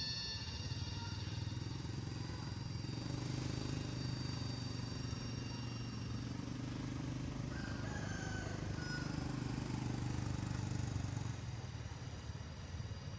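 A motor vehicle's engine rumble that swells and fades as it passes, with short faint bird calls about eight seconds in.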